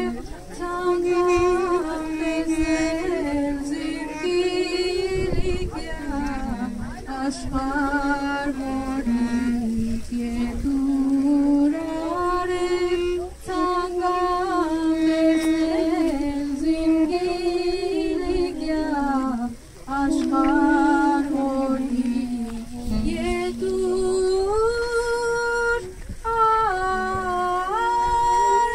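A girl singing solo without accompaniment: a slow, mournful Armenian melody of long held notes that step up and down.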